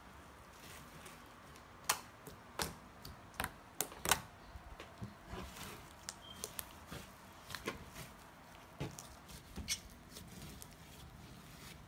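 Green soft-clay slime being kneaded and squeezed by hand on a tabletop, giving irregular sharp pops and clicks, the loudest about two to four seconds in.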